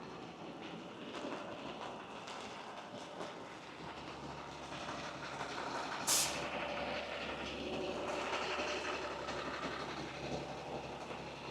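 A heavy vehicle rumbling past, swelling and then easing off, with one sharp short hiss about six seconds in.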